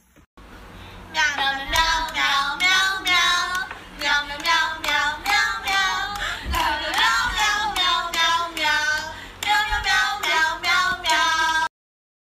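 A person singing a song in a high voice, cutting off suddenly near the end.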